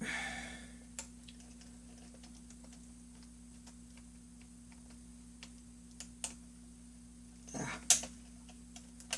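Faint, scattered small plastic clicks and taps of hands working cables and parts inside an open laptop, with a short scraping rustle at the start and a louder scrape near the end. A low steady hum runs underneath.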